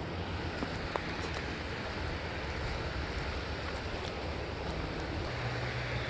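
Steady rushing of a small creek's running water, with low wind rumble on the microphone and a couple of faint clicks about a second in.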